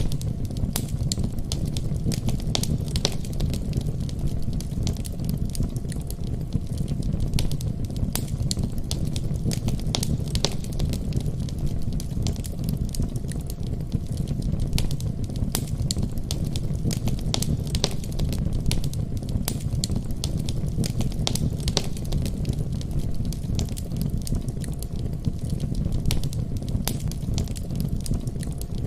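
Fireplace fire burning, with frequent irregular crackles and pops over a steady low rumble of the flames.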